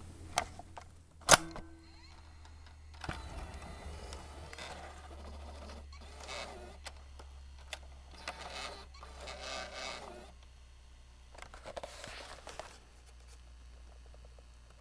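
Cassette being ejected and handled: a sharp plastic click about a second in, then several stretches of clattering from the cassette mechanism, over a low steady hum.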